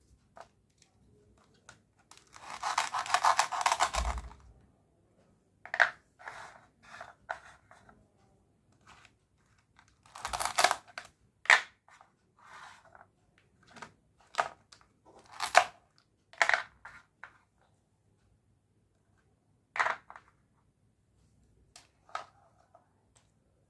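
Toy set packaging being torn open and handled: one long tearing stretch about two and a half seconds in, then scattered short crinkles and clicks.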